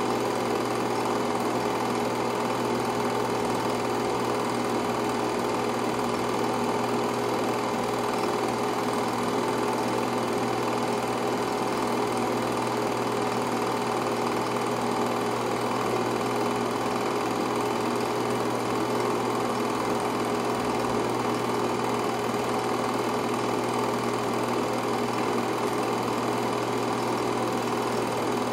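Home-movie film projector running steadily, its motor and film-transport mechanism making an even mechanical whirr.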